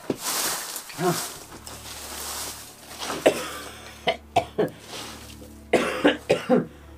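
A man coughing and clearing his throat in several short, sharp fits.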